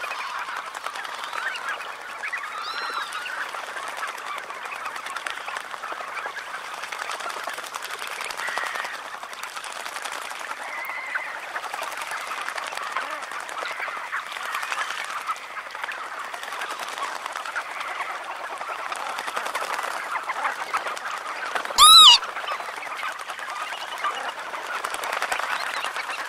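A large flock of red knot calling as they bathe: a dense, steady chatter of many overlapping bird calls. Once, about 22 seconds in, a single bird gives a much louder call close by, rising and falling in pitch.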